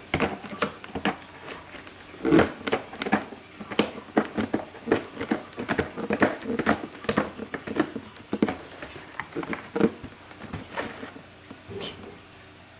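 Irregular rustling and light knocks of toys and packaging being handled and put back into a cardboard box, thinning out near the end.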